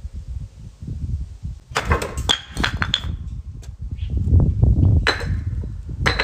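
Bricks being struck by hand chops and breaking: a cluster of sharp cracks and short ringing clinks of brick pieces about two seconds in, then more cracks about five seconds in and near the end, over a low rumble.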